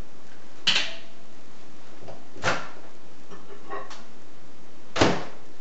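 Microwave door being opened and shut as a bowl of softened margarine is taken out: three sharp clacks spread over a few seconds, the last the loudest.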